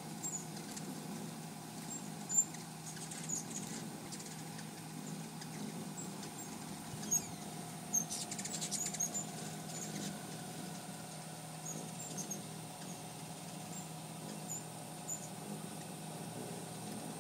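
Hummingbirds swarming a feeder: scattered high, thin chips and squeaks, several in quick succession around seven to nine seconds in, over a steady low hum.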